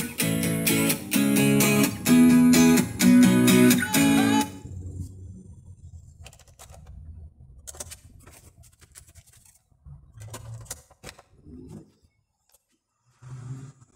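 Music from a Philips HSB2351 soundbar's speakers, a dance-pop track with repeated chord stabs, which cuts off suddenly about four and a half seconds in. Faint clicks and knocks follow as the soundbar's buttons are pressed and the disc reloads, and music starts again faintly at the very end.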